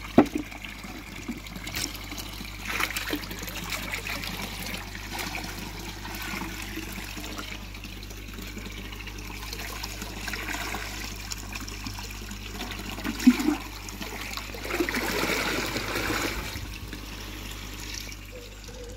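Water splashing and trickling as a bucketful of dissolved potassium permanganate is poured into a koi pond as a second treatment dose, with the water louder for a couple of seconds near the end. Two sharp knocks stand out, one just after the start and one about two-thirds through.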